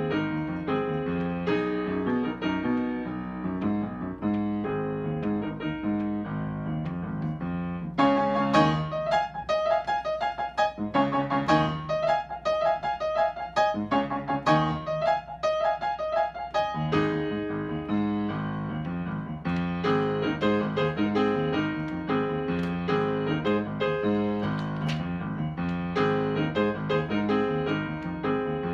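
Upright piano played solo, a steady flow of notes in both hands. About eight seconds in the music moves higher and the low notes mostly drop out, and the full bass comes back around seventeen seconds in.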